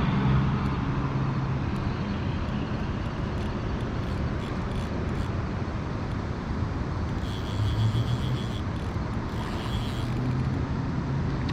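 Steady rush of river water, with a low hum that fades after the first few seconds and returns later on.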